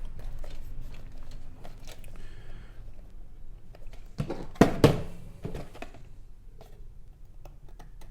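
Cardboard model-kit box being handled: light rustles and small clicks, with two sharp knocks in quick succession a little under five seconds in.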